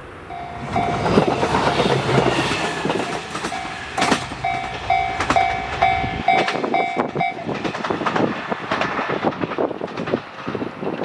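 KiHa 200 diesel railcar passing close by over a level crossing, its wheels clattering over rail joints and its engine's low hum dropping away after about six seconds. A level-crossing warning bell rings in a quick repeated tone, about three strokes a second, through the middle of the passage.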